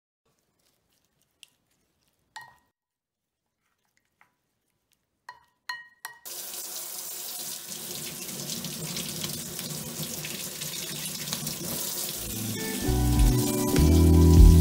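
A few faint clinks, then from about six seconds in a kitchen tap running steadily into a steel sink, the water splashing over crabs as they are rinsed and scrubbed. Music comes in near the end.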